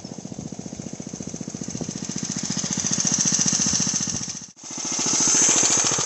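8-horsepower Briggs & Stratton single-cylinder engine on a homemade go-kart, running under load with rapid, even firing pulses as the kart drives up and past, getting louder as it nears. A brief dropout about four and a half seconds in, then the same engine running close by.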